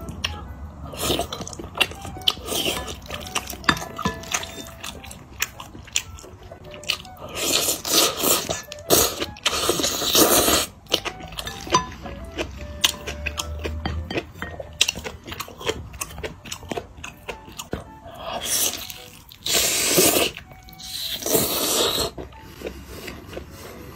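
Close-up eating sounds: wet chewing and smacking of spicy malatang noodles, with many small clicks and two stretches of loud slurping, one about a third of the way in and one near the end, as a roast chicken thigh comes up to the mouth for a bite.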